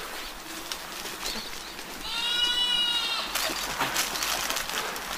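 A goat bleating once, a steady high call lasting about a second, about two seconds in. It is followed by scuffling and clattering among the animals.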